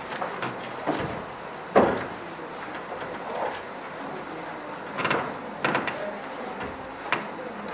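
Scattered bumps and knocks at a wooden lectern with its microphone as one speaker leaves and the next steps up, with the sharpest knock about two seconds in and a few more between five and seven seconds.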